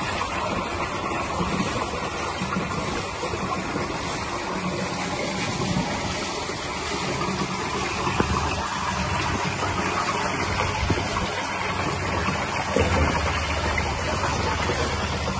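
Water pouring steadily from a small waterfall spillway and splashing into a koi pond.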